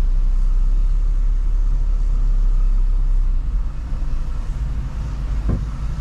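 A car driving, with a steady low rumble from the engine and the road. There is a brief short sound about five and a half seconds in.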